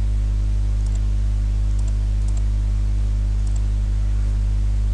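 Loud, steady electrical mains hum with its overtones, from the recording setup, with a few faint mouse clicks.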